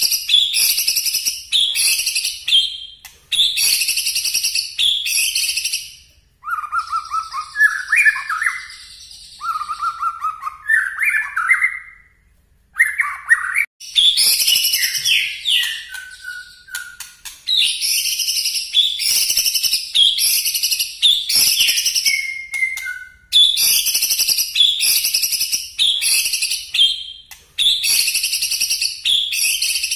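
Caged white-rumped shama (murai batu) singing loudly in repeated runs of quick, sharp, high notes, the hard 'shooting' (nembak) phrases prized in shama song. Lower, warbling phrases break in around a quarter to two fifths of the way through, and again briefly near the end.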